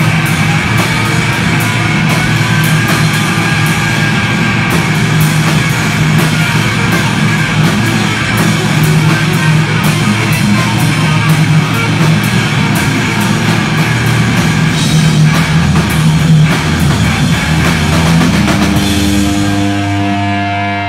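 Live hard-rock band playing loud: distorted electric guitar through a Marshall amp, electric bass and a drum kit with frequent cymbal hits. Near the end the drumming thins out and a few held guitar and bass notes ring on.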